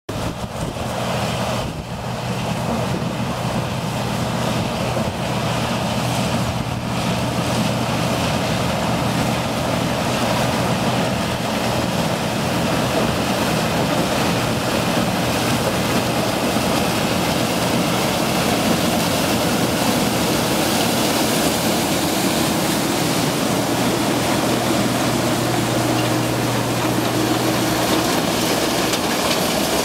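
Case IH Axial-Flow 5088 combine harvester running steadily while harvesting maize, a constant engine and machinery hum mixed with the dense noise of corn stalks being drawn into the corn header. It gets a little louder over the first few seconds, then holds even.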